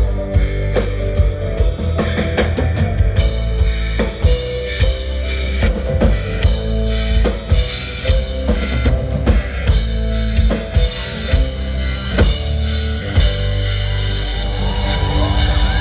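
Live rock band playing the instrumental ending of a song, with a busy drum kit over steady bass and guitar.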